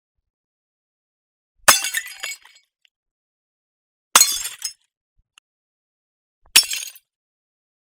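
Glass bottle breaking three times, each a sharp crash followed by the tinkle of falling shards, about two and a half seconds apart.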